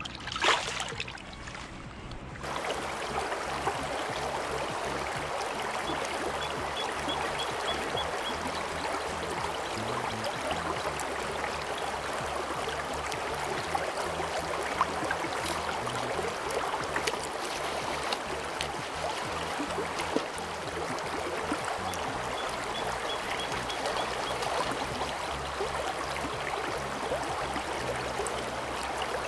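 One splash about half a second in as a released steelhead kicks free of the hands in shallow water, then the steady rush of a riffling river current.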